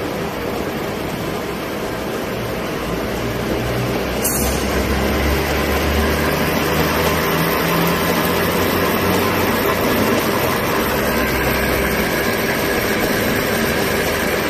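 Dahlih DL-GH950 milling machine running, with a steady low mechanical hum over a dense whir. A single click about four seconds in, after which it runs a little louder.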